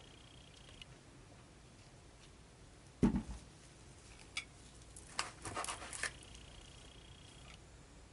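A soap batter container set down on a table with one dull knock about three seconds in, then a few light clicks and clatters of containers being handled as the soap maker switches colours.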